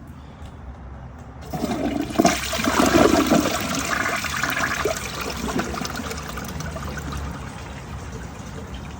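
Toilet flushing: a rush of water starts suddenly about a second and a half in, is loudest for the next two seconds, then tapers to a steady run of water.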